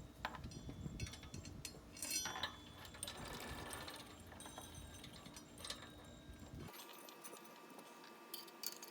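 Mini bike roller chain clinking and rattling in scattered light metallic clicks as it is fitted back on and its connecting link joined.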